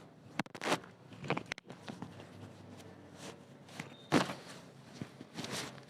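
A few short knocks and rustles from a patient being handled on a chiropractic treatment table, the loudest a sharp knock about four seconds in.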